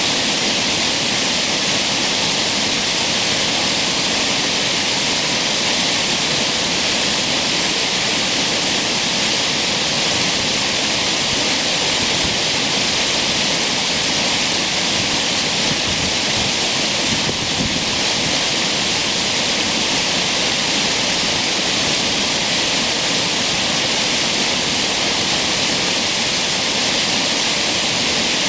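Creek waterfall: loud, steady rush of falling water, an even hiss with no breaks.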